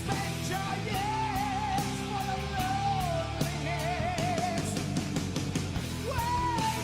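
Background rock music with guitar and drums, with a wavering lead melody carrying heavy vibrato.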